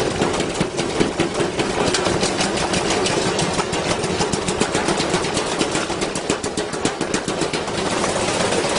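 Washing machine drum spinning with a heavy piece of iron inside, the iron banging against the drum in rapid knocks. The knocks come faster as the spin speeds up and blend into a continuous clatter near the end.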